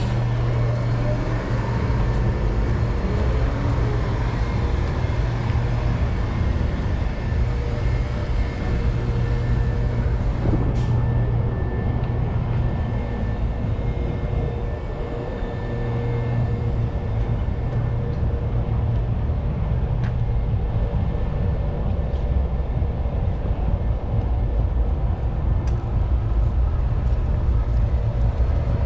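Steady low mechanical hum of city street noise, like idling or passing vehicle engines, with a few faint clicks.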